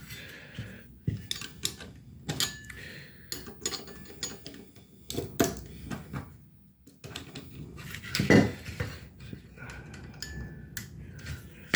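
Irregular metallic clicks, scrapes and clatter of an electronic control panel's casing and parts being pried apart with tools. The loudest knock comes about eight seconds in.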